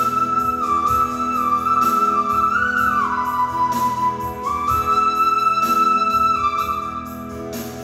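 Yamaha arranger keyboard playing a slow melody in a flute voice, held notes with slides between them, over a soft auto-accompaniment of sustained chords and a light, even drum pattern. The melody stops briefly near the end.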